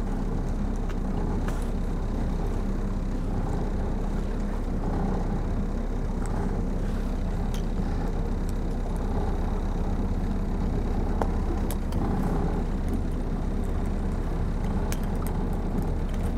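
Steady low engine drone, with a few small metallic clicks as split-ring pliers work a split ring onto a planer-board clip.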